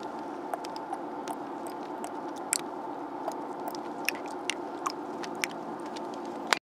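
A child's wet mouth clicks and lip smacks close to the microphone, like chewing, a sharp click every half second or so. Under them is the steady hum of a car cabin on the move. The sound cuts out suddenly just before the end.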